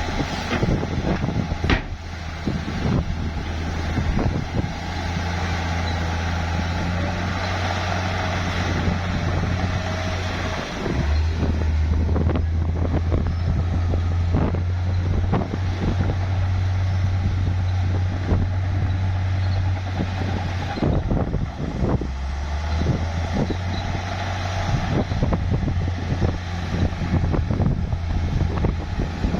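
Bulldozer's diesel engine running under load, with frequent clanks and knocks from its tracks and blade. The engine note deepens and grows louder about eleven seconds in, then shifts again about ten seconds later.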